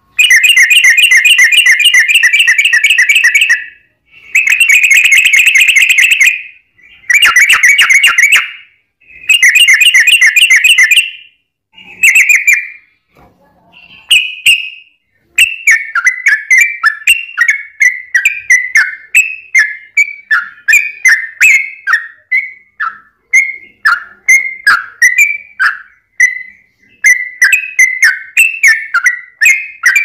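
Yellow-vented bulbul singing. For the first dozen seconds it gives several long, rapid rolling trills of chattering notes. After a brief pause near the middle comes a run of short, falling, bubbly notes, about two a second.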